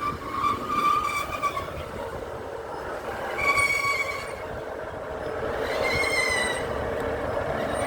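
Northern passenger train pulling slowly into the platform and coming to a stop, with its wheels squealing in three high-pitched bursts over the steady drone of the train.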